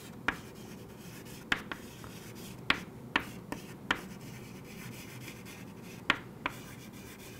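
Chalk tapping and scratching on a chalkboard as a label is written: about nine sharp, irregular taps, with a gap of a couple of seconds between the two groups.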